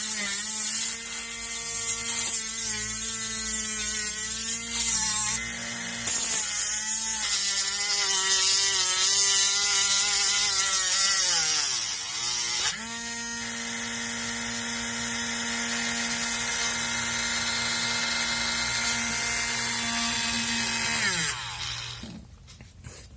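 Small used RC-car DC motor driving a homemade mini sanding machine. It gives a high whine whose pitch wavers and sags under load, with a loud scratchy hiss of abrasive on material. About halfway the pitch dips and recovers and the hiss stops, leaving a steadier free-running whine that winds down near the end as the motor is switched off.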